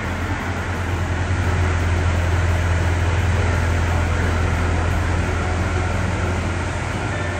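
Kubota M6040SU tractor's diesel engine running hard under heavy load as the tractor drags itself out of deep mud: a steady deep drone, a little louder through the middle.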